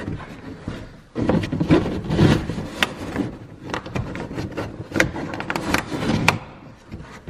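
Plastic fender liner, wire and a plastic push clip being handled by hand: irregular rubbing and scraping with many sharp plastic clicks as the wire is tucked behind the liner and the clip pressed back in.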